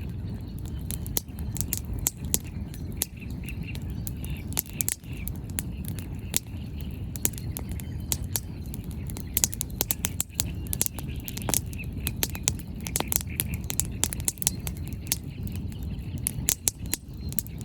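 Wood bonfire crackling: quick irregular pops and snaps of burning firewood over a low steady rumble.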